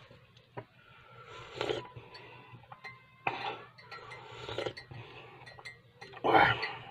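Tea being sipped and slurped from a glass mug, several short sips, then a louder knock or clink near the end as the mug comes down and the table is touched.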